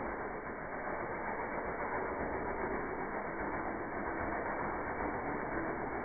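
Sharp Carousel microwave oven running with CDs sparking inside: a steady, even hum.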